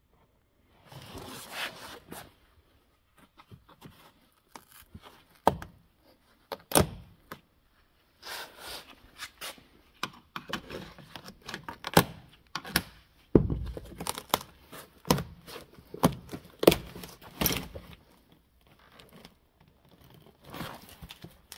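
Irregular knocks, thunks and scrapes, some with a tearing sound, from handling work inside a stripped car body. The sounds are sparse at first, come thick and loudest in the second half, then pause briefly near the end.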